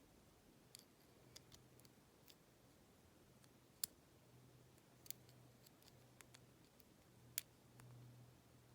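Faint, sparse clicks of a lock pick working the pins of a challenge lock held in a deep false set under tension; a dozen or so sharp ticks, the strongest about four and seven seconds in.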